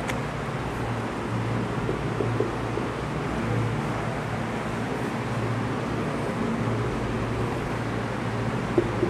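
Marker on a whiteboard: a few short squeaks as it writes, then near the end quick, evenly spaced strokes begin as the mirror line is hatched. A steady low hum and hiss of room noise runs underneath.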